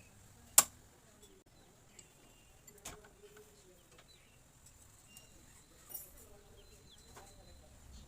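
One sharp, loud metal click about half a second in, then a few lighter clicks and taps, from hand work on a motorcycle rear mono-shock as its spring lock is fitted over the compressed spring.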